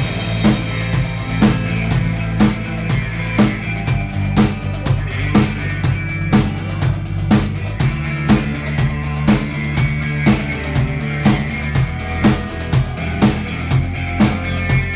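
Instrumental break in a rock song with no singing: a drum kit keeps a steady beat, about one strong hit a second with lighter hits between, over sustained low notes.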